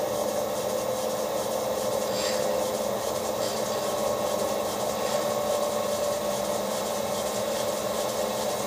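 Milling machine running steadily, its spindle and drive giving an even hum with a held whine, ready to dress the vise face with a large roughing end mill.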